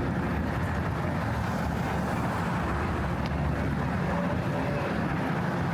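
Steady low rumble of city street traffic, with a little wind on the microphone.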